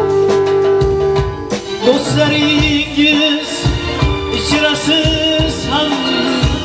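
Live band music: electronic keyboards over a steady drum beat, with a male singer coming in about two seconds in with a long, wavering, ornamented vocal line.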